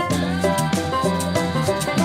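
Upbeat background music with a steady beat and plucked and struck instrument notes.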